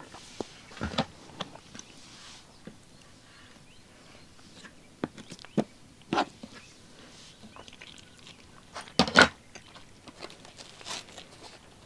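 Scattered light clicks and knocks of eating and handling food and utensils at a meal, with a short louder cluster of knocks about nine seconds in.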